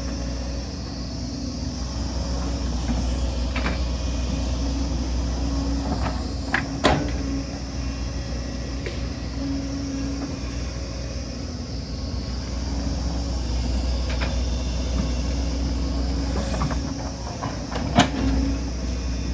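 Excavator's diesel engine running steadily under work, with a few sharp metallic knocks. The loudest knocks come about a third of the way in and near the end.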